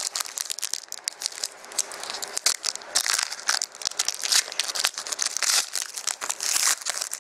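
Plastic trading-card pack wrapper crinkling in the hands and being torn open: a rapid, continuous run of crackles.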